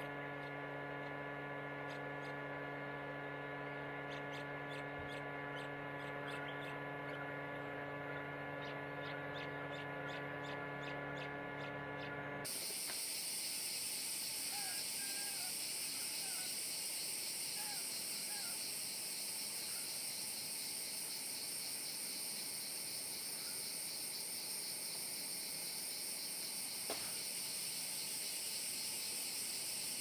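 A steady hum made of a stack of even tones, with faint regular ticking, cuts off abruptly about twelve seconds in. It gives way to tropical forest ambience: a dense high-pitched insect chorus with a few short bird chirps, and a single click near the end.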